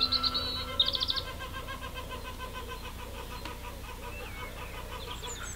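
Tits singing: a fast high trill at the start and another about a second in, then a long run of quick, evenly repeated chirps. An acoustic guitar's last ringing chord is damped right at the start.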